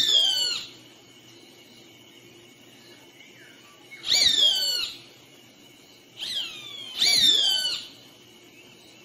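A bird calling: three loud calls, each a quick falling whistle about two-thirds of a second long, at the start, about four seconds in and about seven seconds in, with a fainter call just before the last. A steady high-pitched drone runs underneath.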